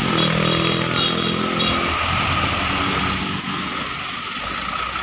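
A passing truck on a highway: a steady pitched tone stops about two seconds in, leaving road noise with a steady high whine.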